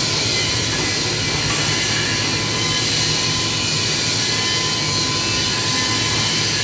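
Steady roar of workshop machinery: a loud, even rushing noise over a low hum, with a thin steady whine.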